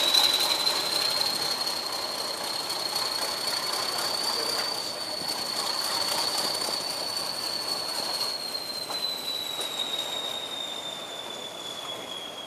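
English Electric Class 40 diesel locomotive 40145 pulling away, its turbochargers giving a high steady whistle over the engine's rumble. The whistle rises slightly in pitch, then sinks and grows quieter after about eight seconds.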